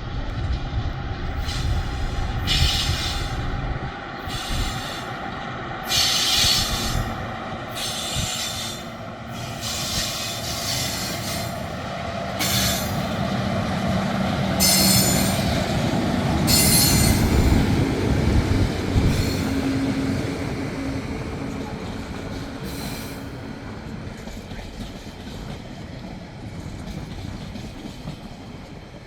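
Freight train passing at close range: a low diesel-locomotive rumble in the first few seconds, then the wagons rolling by with repeated bursts of high-pitched wheel squeal and rail clatter, fading toward the end.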